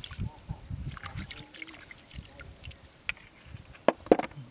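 Wet squelching and dribbling of mud and water as hands rub the mud off a clam's shell, with two sharp clicks near the end.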